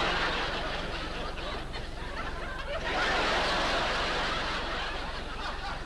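Audience laughter after a gag, swelling again about three seconds in, over a steady low mains hum.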